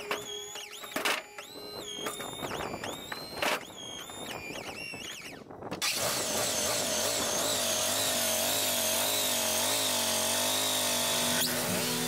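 Wood-Mizer LT-40 sawmill's hydraulic pump motor whining in short bursts, its pitch sagging and recovering as the hydraulic arms shift a heavy oak board. About halfway through, a steady noise with gently wavering tones takes over, which sounds like background music.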